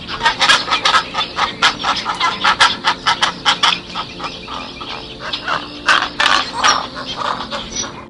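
A flock of birds calling at once: a dense, unbroken run of short, sharp calls, several a second.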